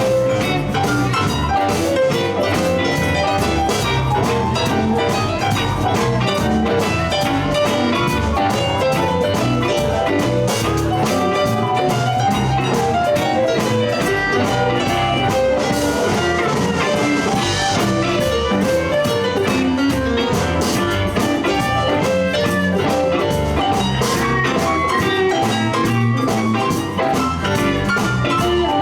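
Live blues band playing an instrumental passage, with no singing: guitar over drum kit, bass and keys, in a steady rhythm.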